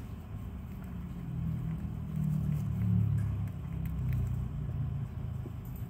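Faint clicks of a white hamster chewing a piece of green food. Under them is a louder low rumble that swells about two seconds in and then eases off.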